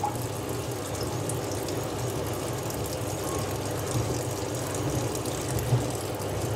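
Tap water running steadily into a sink, with a 1000-grit diamond plate scrubbed back and forth over a wet Hatahoshi natural sharpening stone to raise a slurry.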